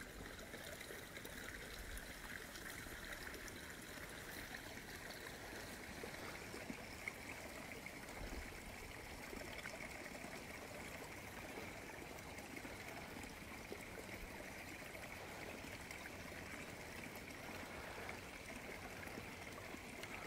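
Faint, steady trickle of running water from the well's spring, with a couple of soft knocks about midway.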